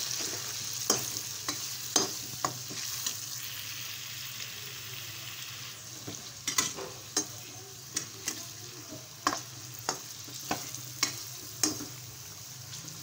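Pre-boiled beef pieces sizzling as they fry in hot oil for a qorma, while a steel spoon stirs them. The spoon knocks and scrapes against the pan a dozen or so times, most often in the second half.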